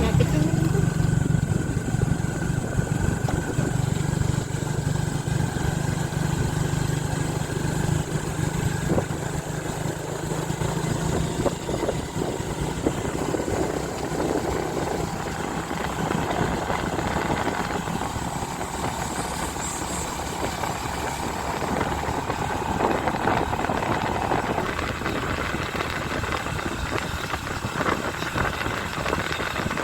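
Motorcycle engine running on the move, with wind and road noise on the microphone. The low engine drone is strongest for about the first twelve seconds, then eases.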